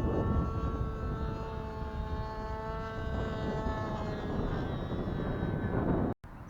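Nitro (glow-fuel) engine of a radio-controlled warbird model airplane droning in flight, its pitch drifting slightly down as it passes. The sound cuts off abruptly near the end.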